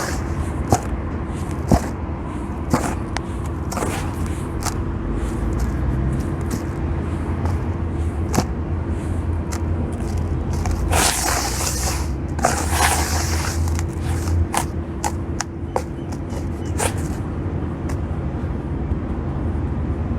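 Crispy sand clumps crunching and crumbling in a little water: scattered sharp crackles, thickest for a couple of seconds a little past halfway, over a steady low hum.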